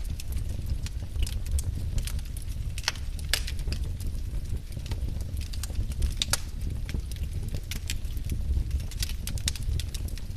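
Wood fire burning, a steady low rumble of flames with irregular sharp crackles and pops of the logs.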